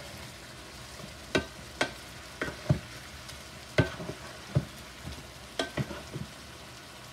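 Chicken drumsticks sizzling in an electric skillet, with a wooden spatula knocking against the pan about nine times, irregularly, as the pieces are pushed about.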